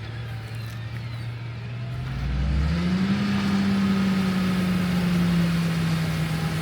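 John Deere 8270R tractor's diesel engine running, revving up about two to three seconds in and getting louder, then holding steady at the higher speed.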